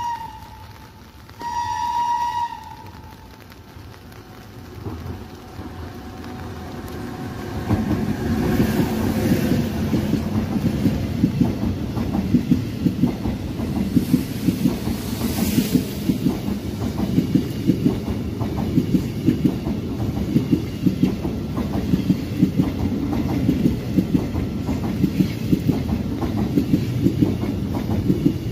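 A train horn blasts twice near the start. Then the Venice-Simplon Orient Express, hauled by two E402B electric locomotives, comes on and passes at speed, loud from about eight seconds in, its carriage wheels clattering rhythmically over the rail joints.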